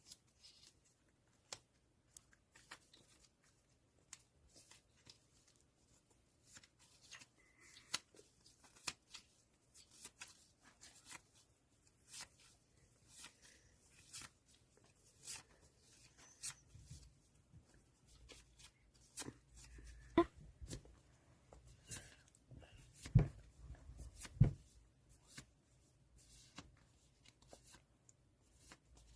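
Photocards and their plastic packing sleeves being handled: a run of soft rustles, crinkles and small clicks. A few louder taps come about two-thirds of the way through.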